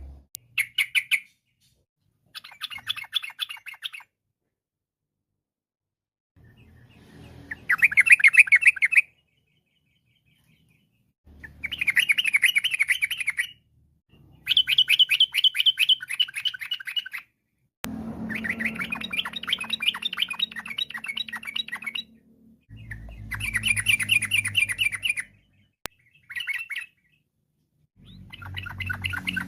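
Yellow-vented bulbul (trucukan) singing: about nine bursts of rapid, bubbling chattering notes, each a second or few long, with short pauses between.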